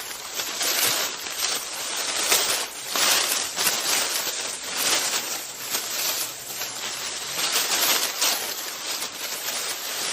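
A person's footsteps, walking steadily, each step a short noisy scrape, starting abruptly at the beginning.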